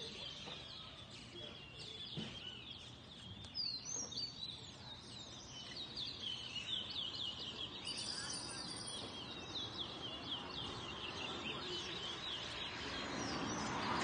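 Caged towa-towa finches singing head to head in a song race: fast, high twittering songs made of rapid chirps, coming thicker from about halfway through.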